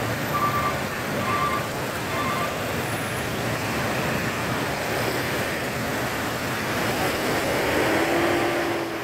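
Steady traffic noise from a jammed hill road of idling and creeping cars, buses, trucks and motorcycles. In the first two or three seconds a high electronic beep repeats about once a second, and near the end a low tone holds for about a second.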